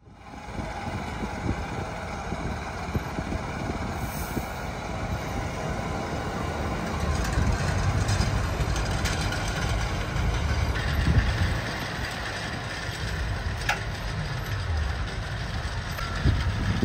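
Fendt tractor engine running steadily under load while pulling a disc-and-roller tillage implement through soil, with a deep rumble that swells and eases and a few sharp clicks from the implement.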